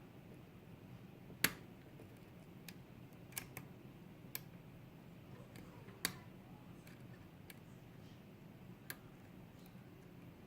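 Small, sharp, irregular clicks of a lock pick working the pins inside a pin-tumbler challenge lock (the PickME 1977 Daydream) under very light tension, about ten over the stretch, the loudest about a second and a half in and again near six seconds.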